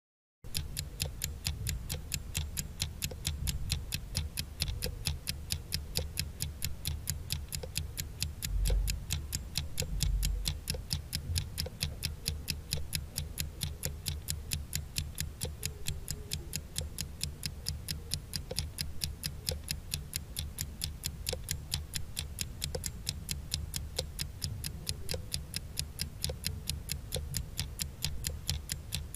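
Countdown-timer sound effect: a clock ticking in rapid, even ticks, with a low hum underneath.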